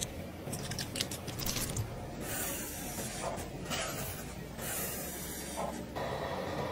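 Close-miked skincare ASMR. Small clicks and squishes come as a grey charcoal clay mask is squeezed out into a glass bowl, then soft hissing swishes as a flat brush spreads the mask over the skin. About six seconds in, the sound changes to a steadier hiss.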